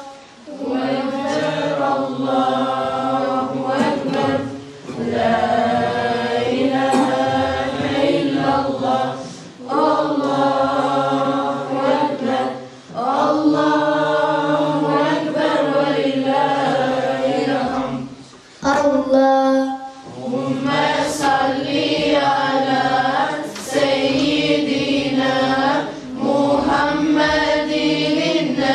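A group of voices singing an Islamic devotional chant in unison, in long melodic phrases with brief pauses between them.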